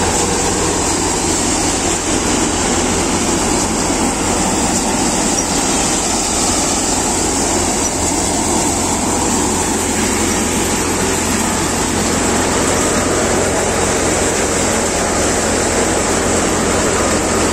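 Guru Hindustan thresher running steadily and loudly while threshing dry soybean plants, with a constant low machine hum under the noise of the crop going through.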